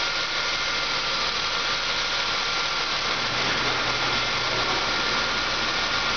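2002 Chrysler Concorde V6 engine idling steadily during a running test, with a thin steady whine over the engine noise.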